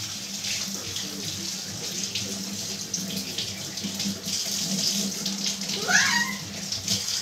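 Kitchen tap running into a stainless steel sink as dishes are rinsed under the stream. A short rising squeal cuts in about six seconds in.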